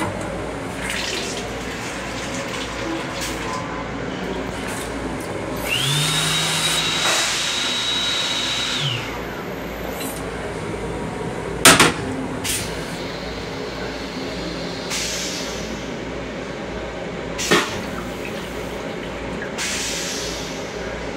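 Sensor-operated sink in a train restroom running water for about three seconds, with a motor whine that rises, holds and falls away. Two sharp knocks follow, over a steady low rumble from the moving train.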